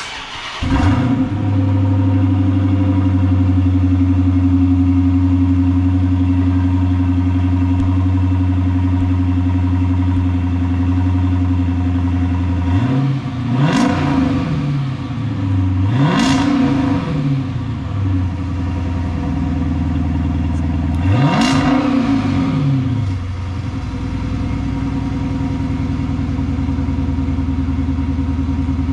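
2013 Dodge Charger Pursuit's engine starting through an exhaust with the mid mufflers deleted, then idling steadily. About halfway through it is revved three times, each rev rising and falling in pitch, and settles back to idle.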